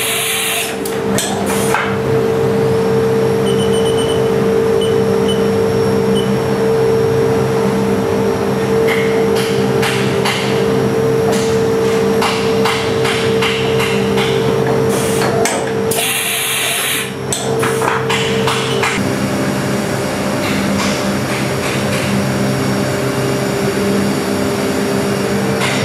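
2007 Haas VF-6/40 vertical machining center running with a steady multi-tone hum, with repeated clicks and knocks from its side-mount tool changer swapping tools at the spindle. A loud hiss sounds just after the start and again for about a second roughly two-thirds through.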